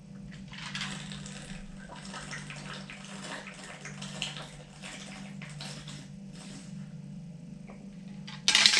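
Drinking from a plastic shaker bottle: liquid sloshing and irregular gulps as it is tipped up. A person's voice comes in near the end.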